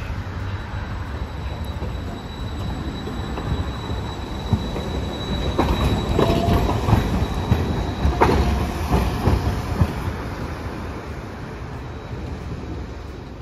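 Hiroden 5000-series Green Mover, a five-section articulated low-floor tram, rolling slowly around a tight curve. A steady rumble carries a thin, high wheel squeal through the first half. In the middle comes a string of sharp clacks as the wheels cross the joints and crossings of the junction, then the sound fades as the tram moves off.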